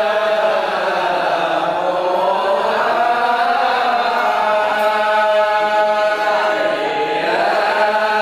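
A group of men chanting Arabic devotional Maulid verses in unison, in long held, slowly gliding melodic lines without drums.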